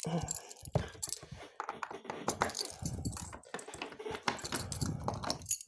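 Handling noise: rustling with many light clicks and clinks.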